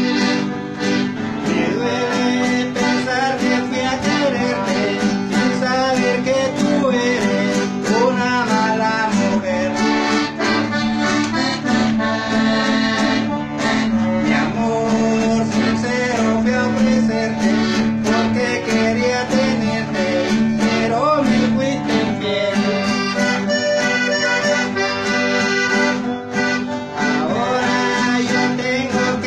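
Vallenato music led by accordion, with plucked strings and a steady percussion beat.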